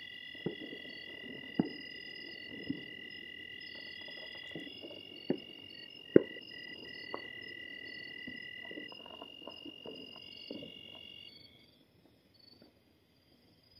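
Distant firecrackers and rockets popping and banging at irregular intervals, the loudest about six seconds in, with a quick run of smaller pops a little later. Under them a steady high-pitched chirping chorus of night creatures, which stops near the end.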